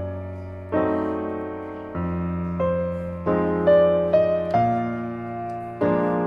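Background piano music: slow, gentle chords and melody notes, each struck and left to fade before the next.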